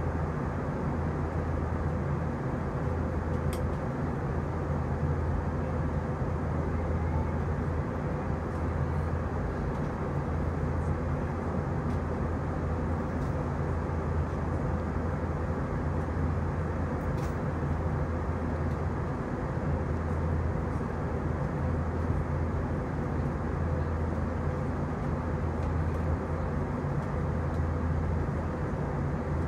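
Steady low drone of an Airbus A321's twin jet engines and rushing air, heard inside the passenger cabin in flight.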